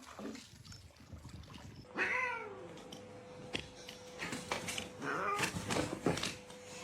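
A cat meowing twice: a call falling in pitch about two seconds in, and a second, lower meow about five seconds in.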